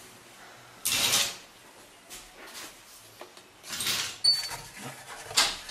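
Three bursts of scraping and knocking from an animal moving inside a chimney: about a second in, around four seconds in, and near the end.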